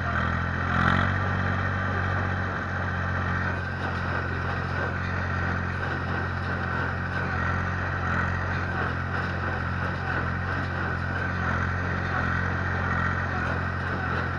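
Ursus C-360-3P tractor's four-cylinder diesel engine running steadily under load while pulling a small square baler through a windrow of wheat straw, with a brief louder moment about a second in.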